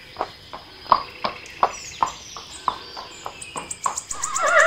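Horse hooves clopping in a run of single knocks, about two to three a second. A horse then starts to whinny near the end with a wavering call.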